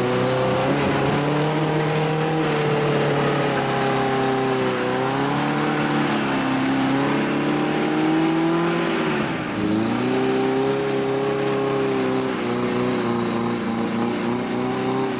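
Small off-road 4x4's engine running hard under load as it crawls up a rough dirt track. The revs hold fairly steady, drop briefly about nine seconds in, then pick up again.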